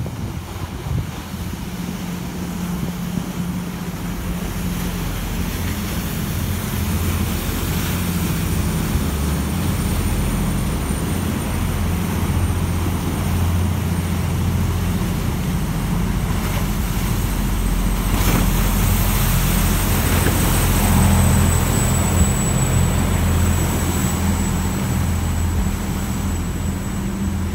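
Khlong Saen Saep canal passenger boat going past, its diesel engine running with a deep, steady drone while its wake churns the water. The engine grows louder toward about three-quarters of the way through, then eases off a little.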